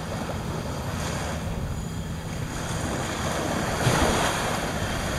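Small waves washing onto a sandy beach, with wind rumbling on the microphone. The wash swells a little about four seconds in.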